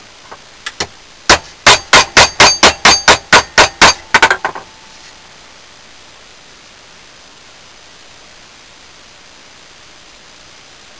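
Hammer blows on a bent steel lawn mower blade clamped in a vise, knocking it straight: a few light taps, then about a dozen sharp ringing strikes at roughly four a second, ending in a quick flurry.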